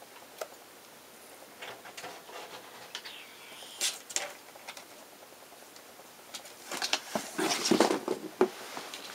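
Ferrets scurrying and scuffling around cardboard boxes and furniture: scattered light taps and patters, then a louder burst of rustling and scrabbling for about a second and a half near the end.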